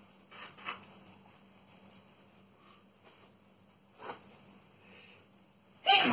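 A few soft sniffs and breaths during a sneezing fit, then a loud sneeze that bursts out just before the end, its voice falling in pitch.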